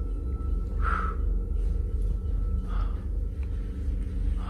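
A loud, steady low rumble with a faint high tone over it, and three short soft swishes about a second and a half apart.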